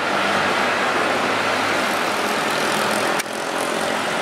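KRL Commuter Line electric train running on the line, a steady rumbling noise with a faint hum. The sound drops out briefly about three seconds in and comes straight back.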